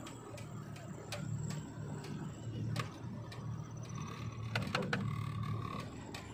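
Car engine running at low speed, heard from inside the cabin as a steady low hum, with a few sharp clicks and rattles, several close together near the end.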